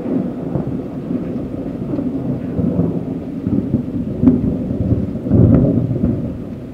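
Thunder rumbling after a lightning flash. It swells twice, with a sharp crack about four seconds in.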